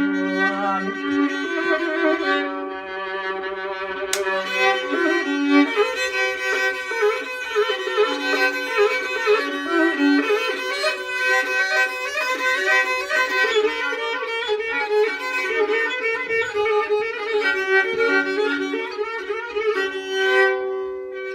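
A bowed fiddle playing an ornamented folk melody over steady drone notes: an instrumental passage between the sung verses of a Turkish folk song.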